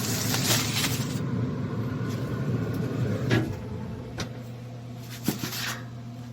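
Steady hum of a running pellet grill with several short knocks and clunks as foil-wrapped ribs are handled and taken off the grill, the loudest clunk about three seconds in.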